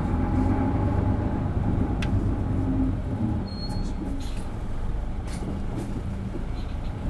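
Isuzu Erga city bus's diesel engine pulling hard under acceleration, a steady low drone that eases slightly about three seconds in, with occasional clicks and rattles.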